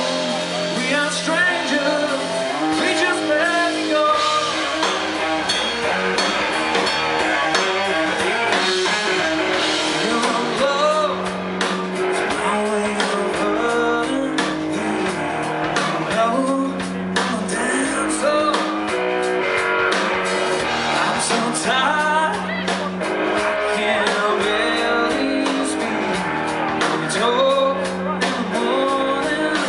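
Live rock band playing a song: a lead vocal over guitar and a steady beat.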